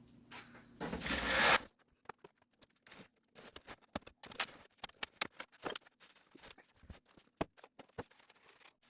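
Packing tape ripped along a cardboard box in one long tear, followed by scattered rustles and light clicks as the box and packing are handled.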